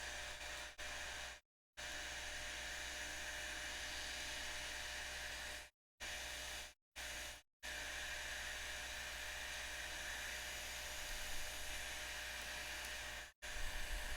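Hot air rework station blowing a steady hiss of hot air while desoldering a Raspberry Pi 4's USB-C port. The hiss cuts out abruptly several times.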